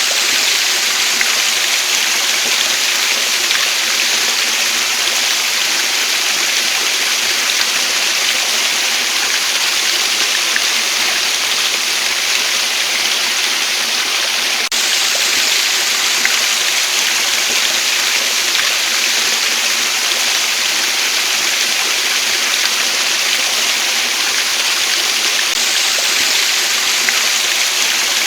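Waterfall: a steady, even rush of falling water, with slight abrupt shifts in its hiss about halfway through and near the end.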